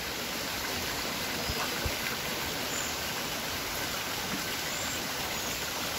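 Steady rush of flowing water from a small rocky stream channel beside the pool.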